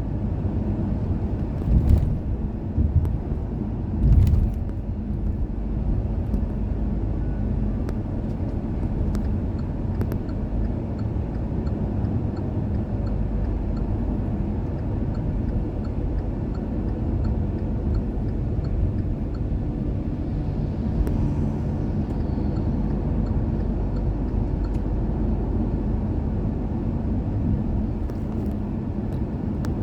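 Steady road and engine rumble heard inside a moving car's cabin with the windows closed. There are a couple of short thumps about two and four seconds in.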